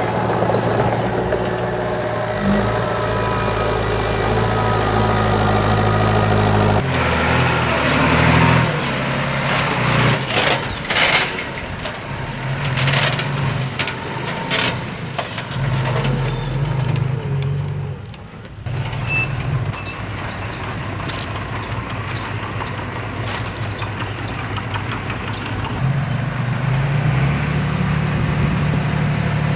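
Heavy diesel construction machinery running, its engine speed rising and falling in steps. A stretch of clattering knocks comes in the middle.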